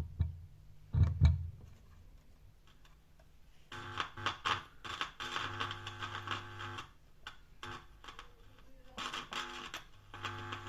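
Home theatre amplifier's test speaker buzzing with mains hum as the volume-control pins are touched, in two stretches, after a few sharp clicks near the start. It shows the signal is getting as far as the volume potentiometers but not onto the board, which the technician takes to mean the volume pots are faulty.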